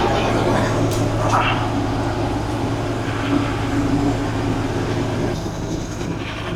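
Boat engine running steadily, a constant low drone under a rushing wash of wind and water.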